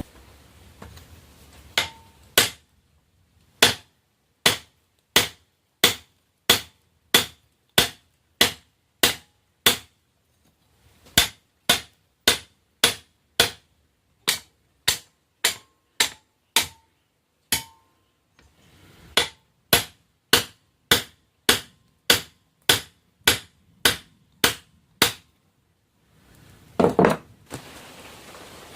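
Hand hammer striking hot steel on an anvil in a steady run of sharp blows, about one and a half a second with a few short pauses: forging a railroad rail end cut. Near the end comes a single louder, rougher noise.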